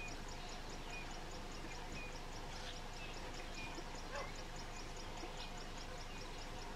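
Bush ambience of wild animal sounds: a fast, even high-pitched pulsing about five times a second, with short bird-like chirps about once a second and a brief rising call about four seconds in.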